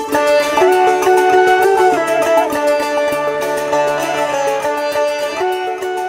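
Instrumental outro jingle music: a melody moving over a fast, steady beat.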